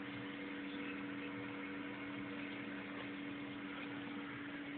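Steady low electrical hum over a faint, even hiss: room tone, with no shot fired.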